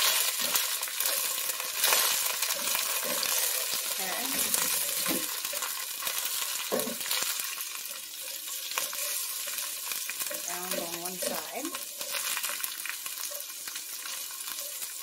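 Potatoes frying in a pan with a steady sizzle, while a spatula stirs them and scrapes the pan now and then.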